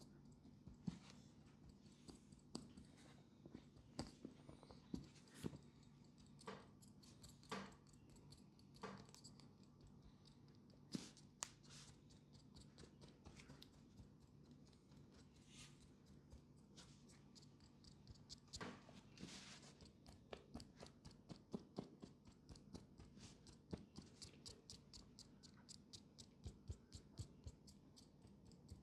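Soft, sharp clicks and taps over a faint steady hum. They are sparse and irregular at first, then come about two or three a second in the last several seconds.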